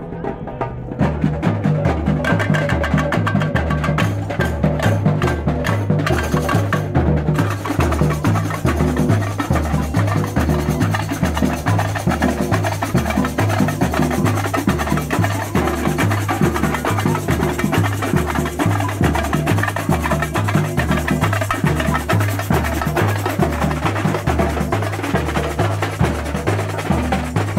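Marching samba-style drum group playing: large bass drums beat a steady, evenly repeating rhythm of alternating low pitches under quick, sharp stick strokes. The drumming comes in loud about a second in.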